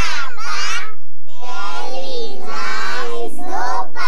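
A group of young girls singing together in high children's voices, with a short break about a second in.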